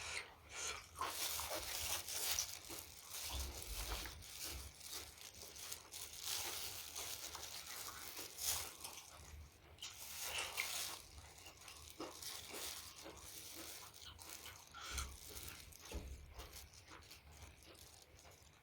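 A person chewing food close to the microphone: irregular wet mouth clicks and smacks, with crunchy bites of salad and chewy octopus.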